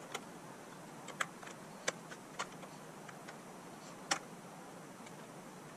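Sharp, irregular clicks and ticks as a T10 Torx screwdriver drives long screws into the plastic housing of a Dyson DC43 vacuum, the loudest click just after four seconds.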